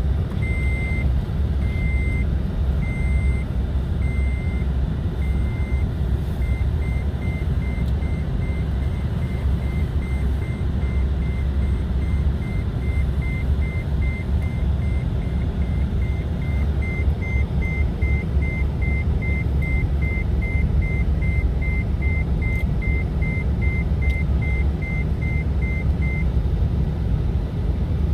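Toyota Tacoma pickup driving in four-wheel drive on a snowy road, heard from inside the cab as a steady low rumble of engine and tyres. Over it a dashboard warning chime beeps about once a second, speeds up to about two a second after some six seconds, then stops near the end.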